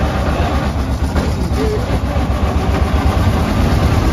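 Engine of a 1903 George Richards veteran car running with a steady low chugging as the open car creeps along in slow traffic.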